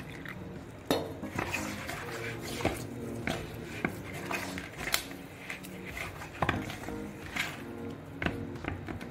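Hand kneading stiff dough in a steel bowl: irregular knocks and clinks of the hand against the metal bowl, about one a second.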